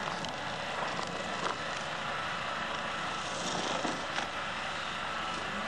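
Boom truck's engine running steadily, under a constant hiss.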